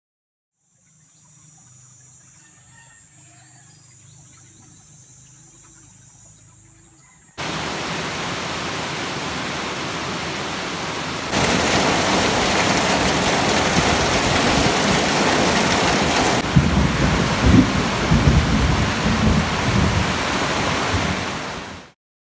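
Heavy tropical downpour, with rain pouring down and water streaming off a roof edge. It comes in abruptly about seven seconds in after a quieter stretch and gets heavier a few seconds later. Low rumbles of thunder surge through the last few seconds before it cuts off.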